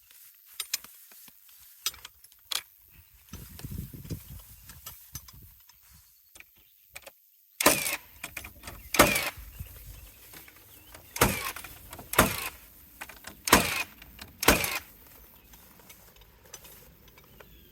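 Nail gun driving galvanized nails into wooden decking boards: about six sharp shots, irregularly spaced a second or two apart, in the second half. Lighter knocks and clicks come before them.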